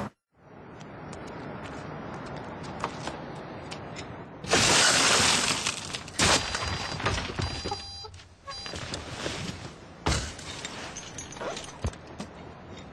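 A car's side window smashed in with a hand tool: glass shattering in several loud crashes, the biggest about four and a half seconds in, with sharp clicks and tinkles of broken glass between them.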